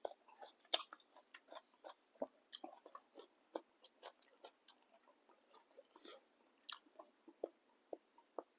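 A person chewing a mouthful of boat noodle soup, with frequent soft, irregular mouth clicks and smacks.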